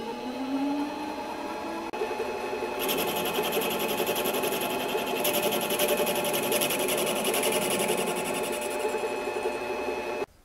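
Harbor Freight metal lathe running, its motor whine rising in pitch over the first second as it comes up to speed and then holding steady. About three seconds in, a harsher, fast rattling joins the whine. Everything stops abruptly near the end as the machine is switched off.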